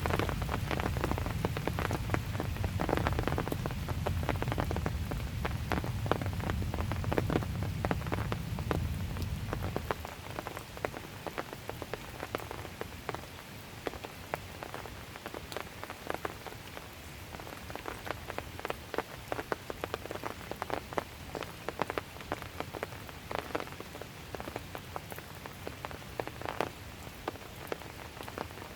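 Calm, steady rain falling, with many separate drops striking the ground and nearby surfaces. A low rumble underneath stops abruptly about a third of the way through.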